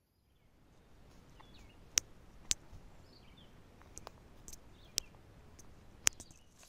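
Quiet outdoor ambience with a few faint bird chirps and a series of sharp, irregular clicks, about half a second to a second apart.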